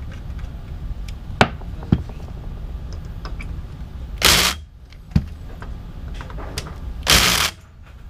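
DeWalt cordless drill driving screws in two short bursts of about half a second each, a few seconds apart. Before and between them come a few sharp clicks and knocks of tools and parts being handled.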